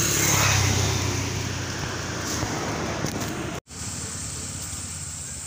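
A motor vehicle going past on the road: engine rumble and tyre hiss, loudest in the first second and slowly fading. The sound drops out for an instant a little past halfway, and a steadier, quieter background noise follows.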